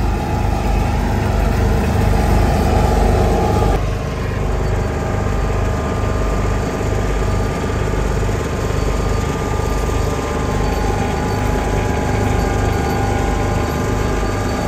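Case IH Puma 225 tractor's engine running steadily as it tows a roller compacting loose quarry stone on a new farm track. The sound changes abruptly about four seconds in.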